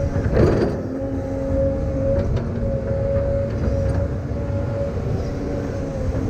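Heavy construction machine running steadily, a low engine rumble with a steady whine, and a brief clatter about half a second in.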